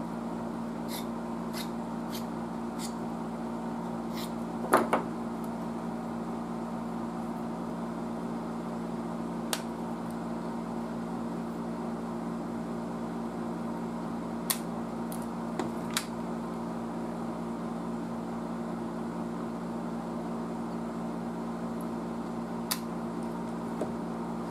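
A steady low hum with a faint higher whine. Over it come a few small clicks and taps of parts and tools handled on the workbench, the loudest a knock about five seconds in.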